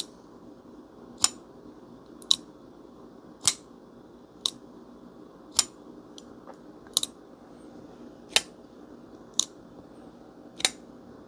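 Vosteed Thunderbird button-lock folding knife being flipped open with its front flipper and closed again over and over, each action a sharp metallic click, about one a second.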